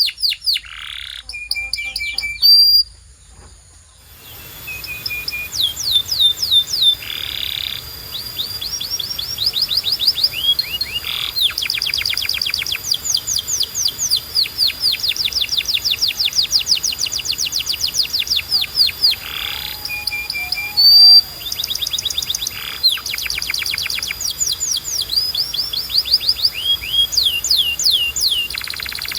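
Domestic canary singing: long rapid trills of repeated down-sweeping notes, broken by short held whistles, with a brief pause about three seconds in.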